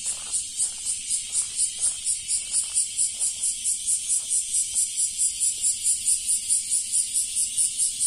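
Cicadas singing: a loud, high-pitched buzz pulsing evenly about four times a second.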